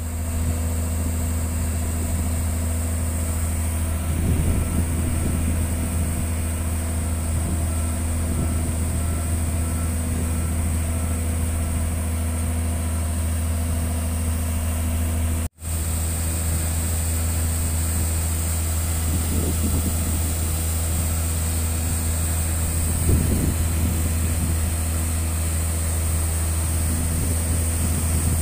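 Diesel engine of a Watermaster amphibious dredger running steadily at constant speed while it drives the slurry pump, a low even hum. The sound breaks off for an instant about halfway through.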